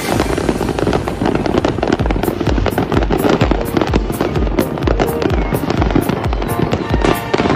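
Dense popping and crackling of many fireworks and firecrackers going off at once. Background music plays over it, and a steady beat comes in about two seconds in.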